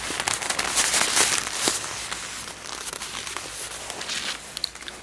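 Leather rustling and crinkling close to the microphone: a dense run of small crackles and clicks, loudest over the first two seconds and fading toward the end.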